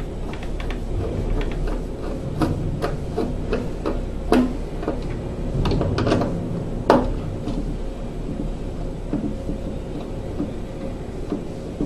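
Scattered clicks and knocks of plastic and metal parts being handled as the furnace's condensate trap is worked loose, over a steady low hum. The sharpest knocks come about four and seven seconds in.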